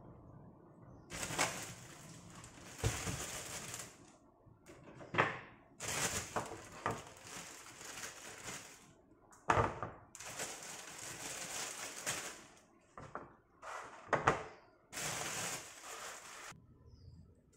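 Clear plastic bag crinkling in several stretches as ginger roots are handled out of it and into a plastic basket, with a few sharp knocks of things set down on the countertop.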